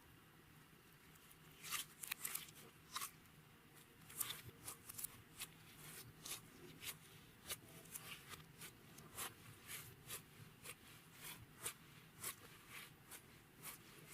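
Slime being worked by hand, making a run of sharp little clicks and crackles, about two or three a second, starting after a second or two.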